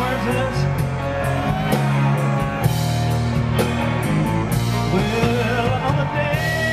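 Live rock band playing: a male singer's lead vocal over distorted electric guitars and a drum kit, with cymbal crashes.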